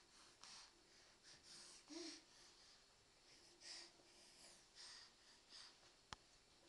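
Faint scuffling and breathy sounds of a baby crawling across a rug, with one sharp click near the end.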